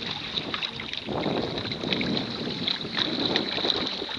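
Wind buffeting the microphone over water rushing and slapping along the hull of a Hobie Tandem Island sailing kayak under way, with scattered small splashes.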